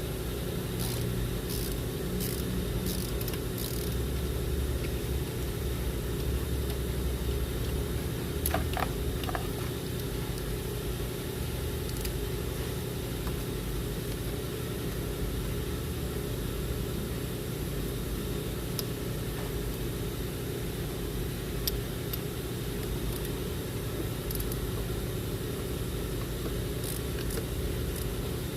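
A steady engine-like hum runs throughout, like a vehicle idling. A few sharp metallic clicks over it are typical of a ratchet wrench working 10mm bolts loose: a cluster about a second in, then single ones now and then.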